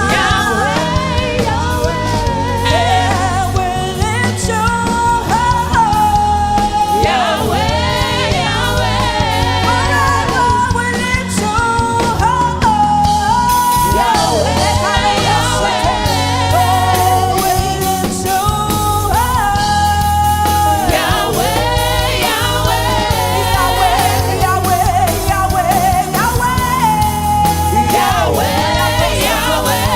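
Gospel worship song: a lead singer with backing voices over a band with bass and drums, loud and steady.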